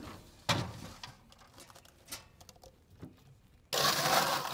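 A beverage cart's cooler being opened: a clunk of the lid or door about half a second in and small handling sounds, then, near the end, a loud rattle of ice in the cooler lasting about a second.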